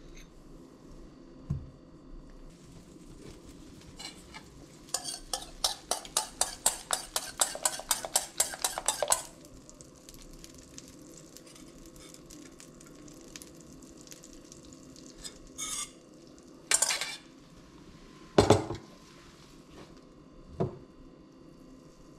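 Wire whisk beating eggs in a stainless steel bowl: rapid metallic clinking, about five strokes a second for some four seconds. Then a few separate clunks and scrapes of the metal bowl as the egg goes into the frying pan, over a faint steady sizzle.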